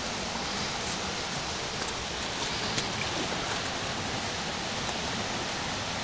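Mountain river rushing over rocks in shallow rapids: a steady, even rush of water, with a few faint clicks.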